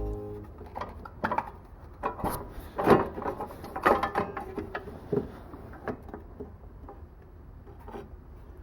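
Irregular clicks, clunks and light knocks of hand tools and metal engine parts being handled while the cover is taken off a lawnmower engine, with a few sharper knocks around the middle.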